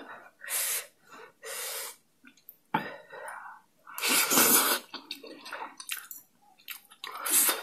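Close-miked mouth sounds of eating spicy instant noodles: several short, breathy slurps with wet smacking and chewing clicks between them, the loudest slurp about four seconds in.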